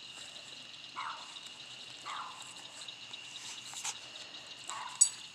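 Night insects, crickets or similar, trilling steadily in a high chorus, with a short lower-pitched animal call repeating roughly once a second. A single sharp click near the end.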